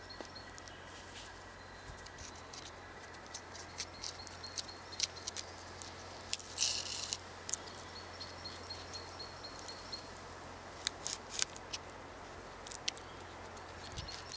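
Braided cord being pulled through and tightened around a pine trunk as a hitch is tied: scattered short rustles and scrapes of cord on cord and bark, with a longer scrape about seven seconds in and a quick cluster of them near eleven seconds.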